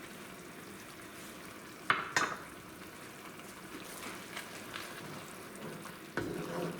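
Red tomato-chile sauce frying in hot oil in a pan, a steady sizzle, with two sharp knocks of a utensil against the pan about two seconds in.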